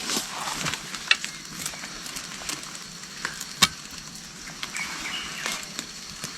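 Footsteps and rustling through dry leaves and undergrowth, with scattered sharp crackles and snaps, the loudest about three and a half seconds in.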